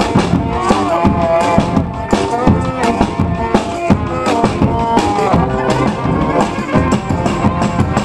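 Street brass band playing live: saxophones and brass horns holding and moving between notes over a steady drum beat.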